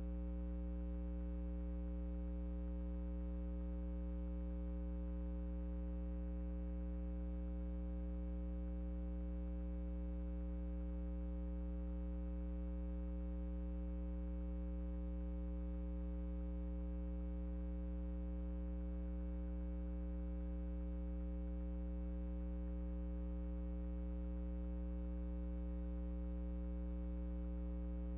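Steady electrical mains hum: a low, unchanging buzz with a stack of higher overtones above it.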